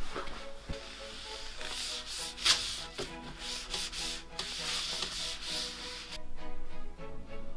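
A cloth wiped back and forth over a smooth dark wood-grain tabletop, a rubbing hiss that stops about six seconds in.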